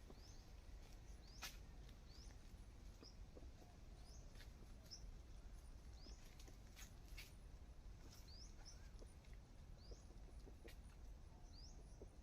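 Near silence: faint, short high chirps of small birds come every second or so, with a few scattered faint clicks.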